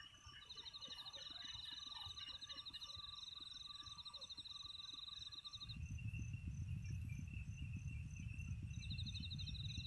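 Crickets and other insects calling: a fast, pulsed cricket trill stops a little past halfway and starts again near the end, over several steadier high insect tones. A little past halfway a louder low rumble sets in and runs on beneath them.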